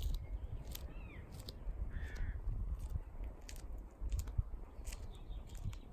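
Wind rumbling on the microphone, scattered sharp clicks, and a bird calling a couple of times about one and two seconds in.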